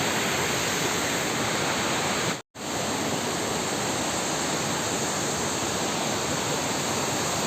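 Steady rushing roar of a waterfall, with a split-second dropout about two and a half seconds in.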